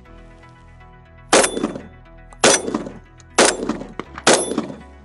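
Four shots from a Remington V3 TAC-13, a gas-operated semi-automatic 12-gauge, fired about a second apart with light target loads, each trailing off over about half a second. Background music plays underneath.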